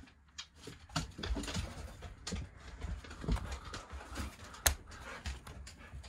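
Scattered light clicks and taps from the gas heater's thermostat mechanism being worked by hand, with one sharper click about two-thirds of the way through. The heater does not respond: there seems to be no electricity reaching it.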